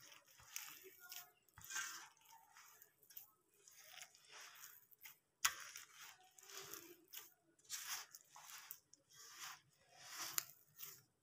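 Hand kneading flour and lukewarm water into roti dough in a steel bowl: faint repeated scraping, crunching strokes of dry flour against the metal, about one a second. A sharp click against the bowl about five seconds in.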